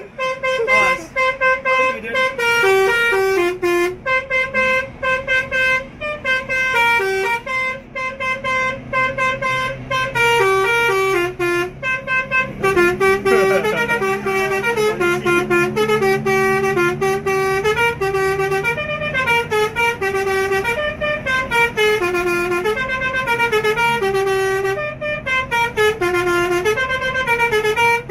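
Indonesian bus's basuri (telolet) multi-tone horn playing a tune: a long, unbroken run of short notes stepping up and down, heard from inside the bus. A low steady hum sits beneath the tune through the middle of it.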